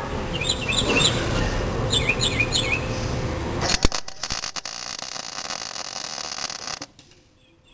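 MIG welder arc crackling on steel for about three seconds, starting a few seconds in and cutting off suddenly when the trigger is released. Before it, birds chirp over a steady background hiss.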